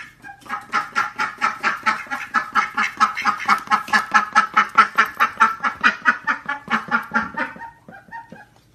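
Indian runner ducks quacking in a long rapid run of short calls, about five a second, breaking off near the end into a few softer calls.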